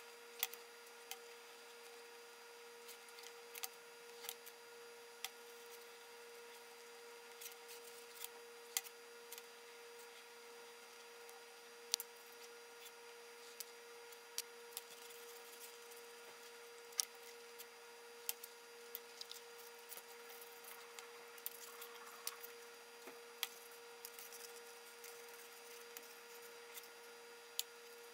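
Paracord being worked by hand into a knot: scattered small clicks and rubbing as the cord is pulled through and handled, over a steady faint electrical hum.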